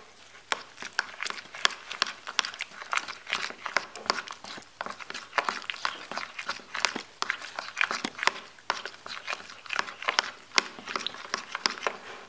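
A metal spoon stirring a thick, wet paste of rice flour, flour and milk in a plastic bowl: quick, irregular scrapes and clicks of the spoon against the bowl, several a second, with wet squelching of the paste.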